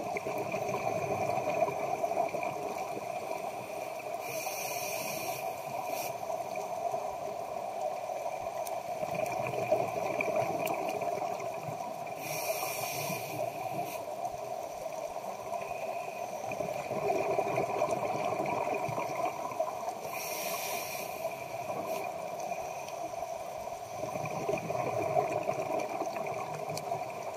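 Scuba diver breathing through a regulator underwater. Each breath takes about eight seconds: a rumble of exhaled bubbles, then a short high hiss of inhalation, three times over. A steady hum runs underneath.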